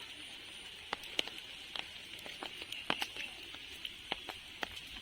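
Rain falling, with large drops tapping irregularly on an umbrella a few times a second over a steady high hiss.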